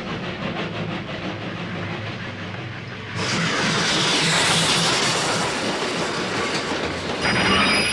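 Animated space-train sound effects: a rhythmic clatter of train wheels, then about three seconds in a sudden loud rushing hiss. High squealing tones join near the end.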